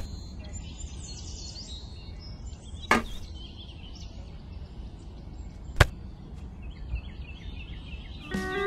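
Three sharp knocks, about three seconds apart, over a low steady rumble with faint bird chirps. Music with a guitar begins near the end.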